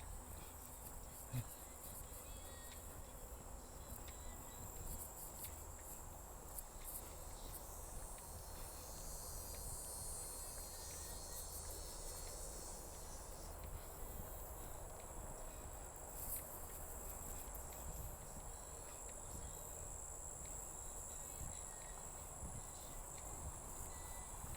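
Steady high-pitched insect chorus, with a second, broader high buzz joining for about five seconds near the middle.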